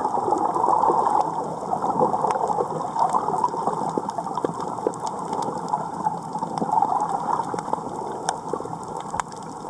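Underwater ambience on a reef: a steady gurgling water noise with many scattered sharp clicks and crackles.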